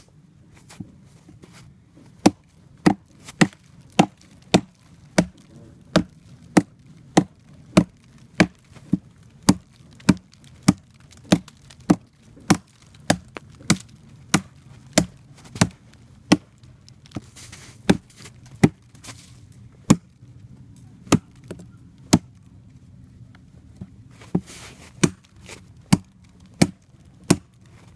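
A straight-bladed plastun knife chopping into an oak log that is rotten in places: a long, even run of sharp wooden chops, about one and a half to two a second, starting about two seconds in.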